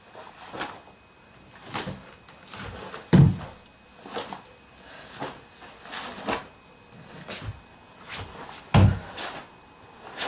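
A karate gi snapping sharply with each strike and block of the kata Naihanchi Sandan, with two heavy thuds of a bare foot stamping on a wooden floor, about three seconds in and again about nine seconds in.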